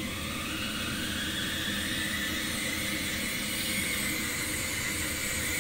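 Baxi Fortech gas boiler running loud with a whistle over a steady hum and hiss. The whistle rises in pitch over the first few seconds, then holds. The owner puts it down to scale in the heat exchanger causing cavitation, or possibly a faulty three-way valve.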